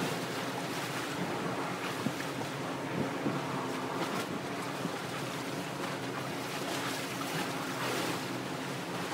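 Open-water ambience: wind on the microphone and river water lapping, over a steady low engine drone from a passing vessel.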